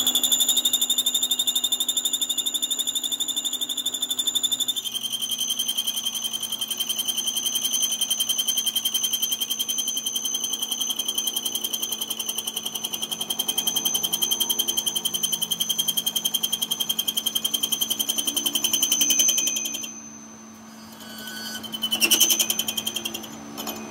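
Metal lathe facing a spinning metal gear blank, the cutting tool chattering with a high-pitched, rapidly pulsing squeal over the machine's steady hum. The squeal drops slightly in pitch about five seconds in, stops a few seconds before the end, and returns in a short burst near the end.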